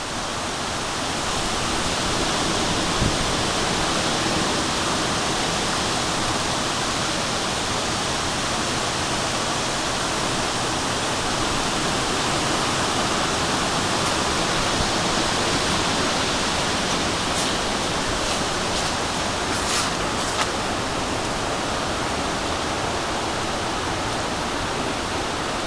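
Steady rushing roar of storm wind during Hurricane Sandy, a sound like jets passing overhead, with a few faint ticks between about 17 and 20 seconds in.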